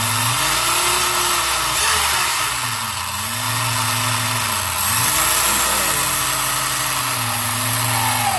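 Tekno EB410 1/10 electric buggy's brushless motor and drivetrain spinning the wheels in the air on 6S, with the transmitter's throttle turned down. The whine rises and falls in pitch about three times as the throttle is worked, over a steady gear hiss.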